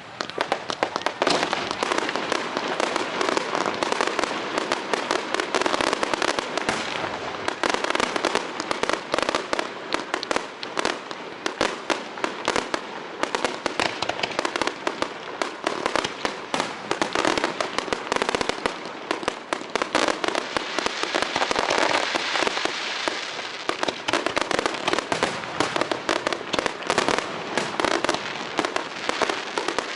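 Aerial fireworks display: a dense, unbroken barrage of bangs and crackling shells that keeps on throughout.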